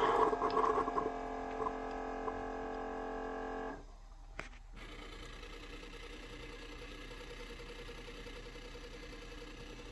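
Keurig coffee maker brewing: a steady pump hum with a few clear tones, which cuts off abruptly about four seconds in. After a short click, a fainter steady hum continues.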